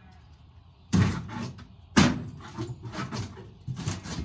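The remains of an old seat being wrenched out of a small kart's frame: two loud sharp bangs about a second apart, then a run of smaller knocks and rattles.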